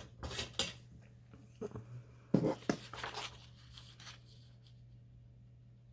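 Scissors cutting paper: a few short snips and paper rustles in the first three seconds or so, then quieter.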